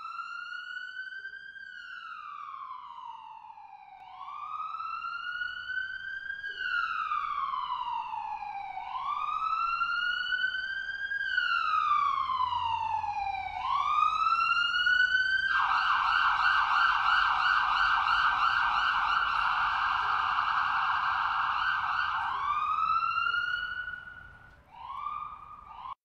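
Electronic police siren wailing, rising and falling in slow sweeps about four seconds long. About fifteen seconds in it switches to a rapid yelp for several seconds, then goes back to the wail and cuts off near the end.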